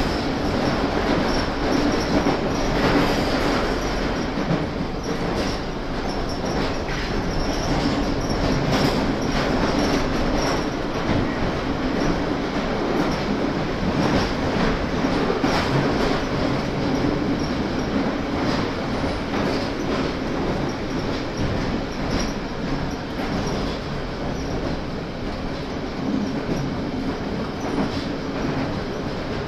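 London Underground 1992 Tube Stock car running through a tube tunnel, heard from inside: a steady rumble and roar of the wheels and chopper-controlled LT130 traction motors, with a steady low hum and frequent irregular clicks of the wheels over rail joints.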